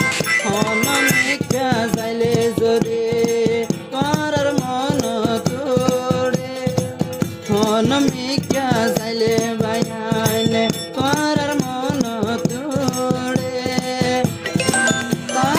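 Rohingya tarana music: a wavering, ornamented melody over steady held notes, with a quick, even rattling percussion beat.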